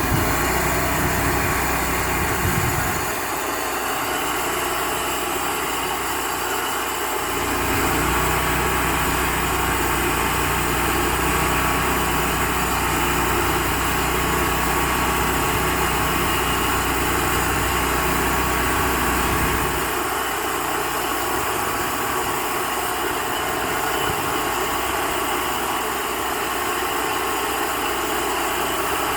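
Cook's band sawmill running steadily, with a constant steady tone over a broad machine noise. A deep low rumble drops out about three seconds in, returns a few seconds later, and drops out again about two-thirds of the way through.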